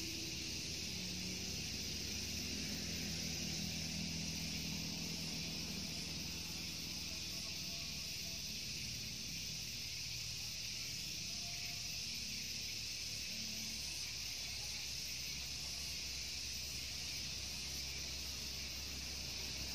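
Rural outdoor ambience: a steady high-pitched insect chirring, with a low distant engine hum that fades out around halfway through.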